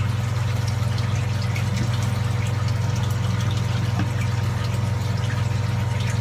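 Steady low electrical hum of running aquarium equipment such as pumps, with several faint steady tones above it and an even hiss.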